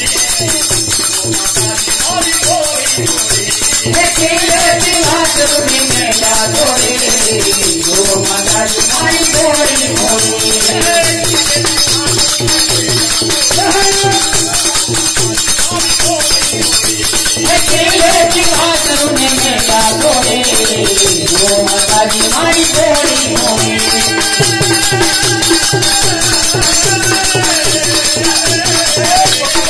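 Devotional dhun: a man's voice singing a gliding melody into a microphone, over a fast, steady shaking of jingling hand percussion.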